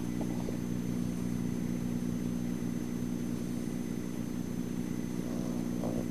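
A steady low motor hum, holding an even pitch with no breaks.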